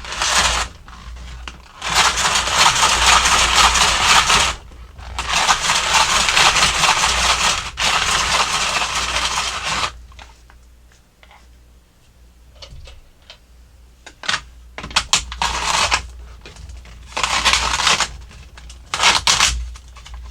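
Hand-cranked Snoopy snow cone maker shaving ice cubes, a loud grinding, crunching scrape that sounds as if the plastic toy is breaking. It runs in two long spells with a short break, then in shorter bursts with scattered clicks near the end.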